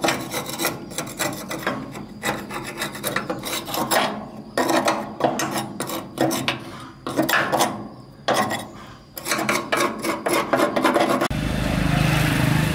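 Rapid strokes of a hand file rasping on a part, in uneven runs with short pauses between them. Near the end it cuts to an engine running.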